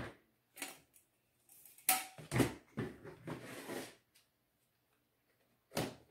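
Hard plastic knocks and clatter as a wall clock's plastic frame ring is pressed back over the face and the clock is handled on a tabletop, loudest about two seconds in, with one more sharp knock near the end as the clock is laid face down.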